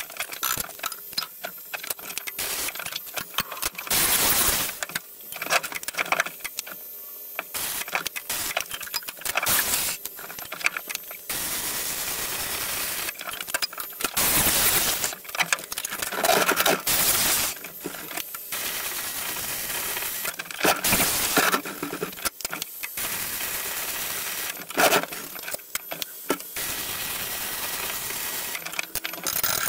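Flux-core MIG welding arc on stainless steel crackling and hissing, on and off, in short tack welds and several longer runs of a few seconds each, with pauses between.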